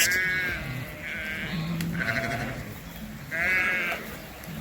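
A flock of ewes and lambs bleating: about four separate calls in quick succession, the last one, between three and four seconds in, among the loudest.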